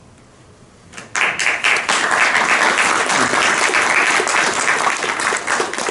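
Audience applauding, breaking out about a second in after a brief quiet and carrying on as a dense patter of many hands clapping.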